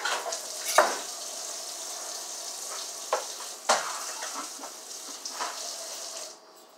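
Kitchen work: a steady hiss with several sharp clinks of kitchenware scattered through it. The hiss cuts off suddenly near the end.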